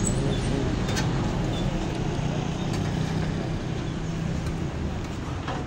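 Steady low rumble of road traffic, with a couple of short light clicks, one about a second in and one near the end.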